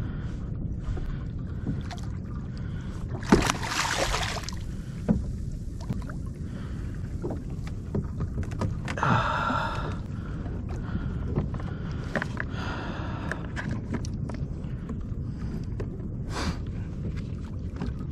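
Water sloshing against a fishing kayak's hull over a steady low rumble of wind and sea, with scattered clicks and knocks of gear on the kayak. A louder rush of noise lasts about a second, a little over three seconds in.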